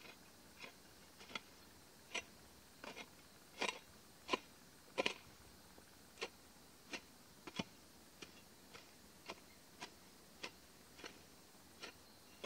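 Long-handled metal hoe chopping into grassy soil in a steady run of strokes, about three every two seconds, loudest a few seconds in.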